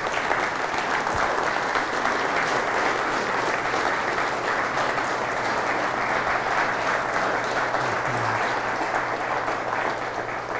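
Audience applauding steadily, a dense patter of many hands clapping, fading near the end.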